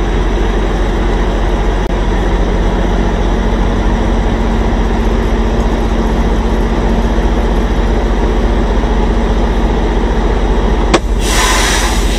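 Semi truck's diesel engine idling steadily. Near the end, a sharp click is followed by about a second of loud air hiss: the truck's air brakes being set as it comes to a stop.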